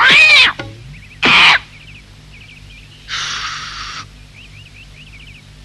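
Cartoon parrot squawking twice, loud and short, in the first second and a half. A short hiss follows about three seconds in, with faint bird chirps in the background.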